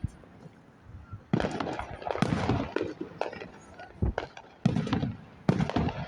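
Fireworks going off: several bursts of sharp bangs and crackling, spaced about a second apart with quieter gaps between.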